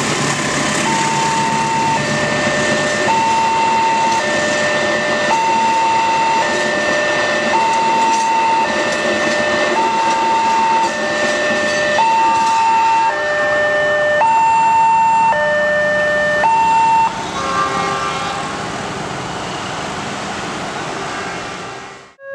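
Railway level-crossing warning siren sounding an electronic two-tone alarm, a lower and a higher tone alternating about once a second, over the running noise of a passing train. About 17 seconds in the two-tone alarm stops and the noise slowly fades.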